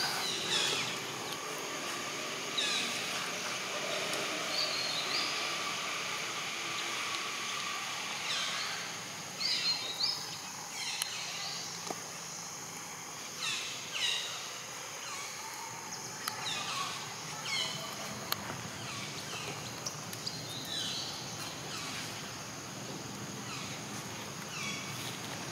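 Outdoor forest ambience: a steady insect drone, with short high chirping calls repeating every second or two.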